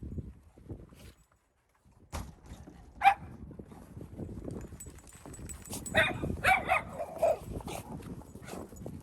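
Miniature schnauzers barking: one sharp bark about three seconds in, then a quick run of four or five barks around six to seven seconds in, over low rustling and thumps.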